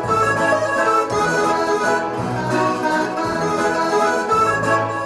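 Electronic keyboard, a Yamaha PSR-3000, playing an instrumental interlude of a Polish folk tune: a melody in held notes over a bass and chord accompaniment, with no singing.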